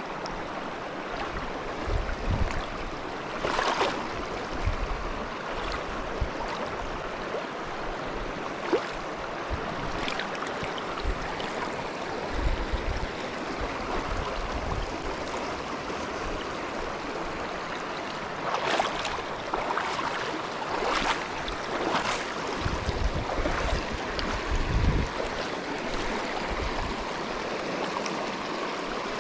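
Creek water rushing steadily over its bed. A few brief louder noises break in about four seconds in and again around twenty seconds, with scattered low bumps underneath.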